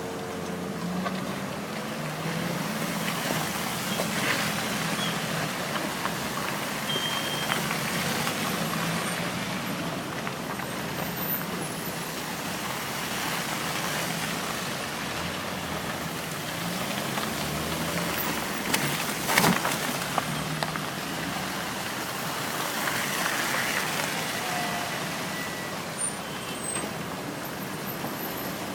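Heavy vehicle engine running steadily with a rumble of road noise, and one short, sharp burst about two-thirds of the way through.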